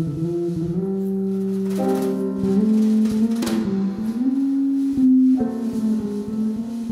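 A live jazz trio of electric keyboard, electric bass guitar and drum kit playing, with long held notes and chords and light cymbal strokes.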